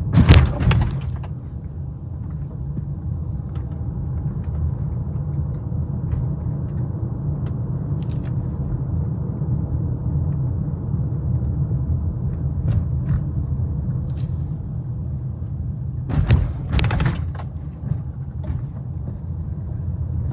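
Car driving slowly: a steady low rumble of engine and road noise, with short louder knocks right at the start and again about sixteen seconds in.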